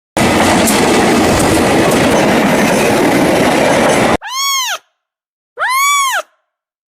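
A train running past as a loud, even rumble that cuts off abruptly about four seconds in. Then comes a cat meowing twice, each meow rising and then falling in pitch.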